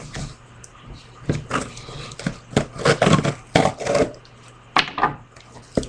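A cardboard parcel being handled and turned over before opening: irregular knocks, taps and rustling of the box.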